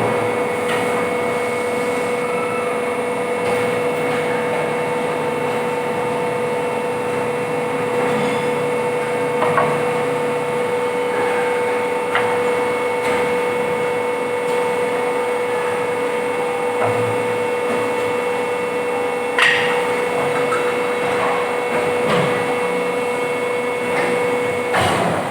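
Plastic injection moulding machine running on a factory floor: a steady hum with a constant mid-pitched tone, broken by occasional sharp clanks, the loudest about two-thirds of the way through. The hum's main tone drops out near the end.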